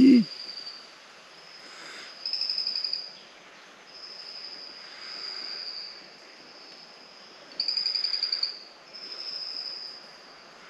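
Forest ambience: a high, rapid trilling call repeats in bouts of about a second, with fainter steady high calls between the bouts. A brief low sound comes right at the start.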